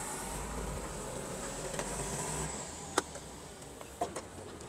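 Forklift engine cover being raised: a low rumble of handling, then a sharp click about three seconds in and a fainter one a second later.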